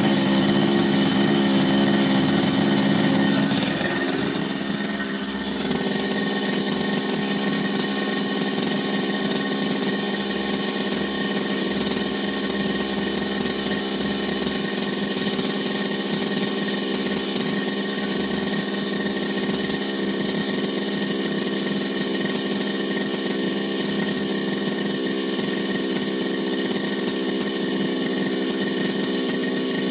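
Brushcutter engine running steadily. It runs a little louder for the first few seconds, then settles to an even, constant speed.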